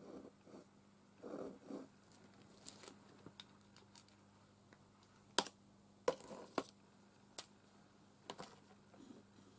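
Fineliner pen scratching on paper in a few short strokes, then several sharp clicks as plastic pens are picked up and set down on the table.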